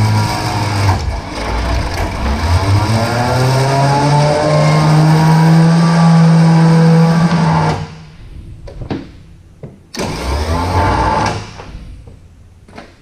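Electric hoist motor running as it lowers a heavy tractor transmission case on its chain, the hum rising slowly in pitch and stopping about eight seconds in. A few knocks follow, then a second short run of the hoist.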